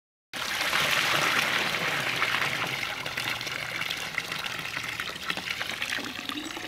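Water pouring out of an acoustic guitar's body and splashing into lake water: a steady gush that starts abruptly and slowly tapers off as the stream thins.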